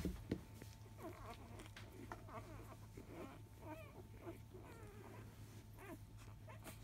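Newborn Labrador puppies nursing, making faint scattered short squeaks and grunts, with a soft knock right at the start.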